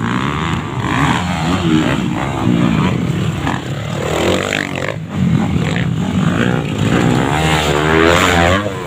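Motocross dirt bike engine revving up and easing off again and again as the bike races along the track, loudest near the end as a bike passes close by.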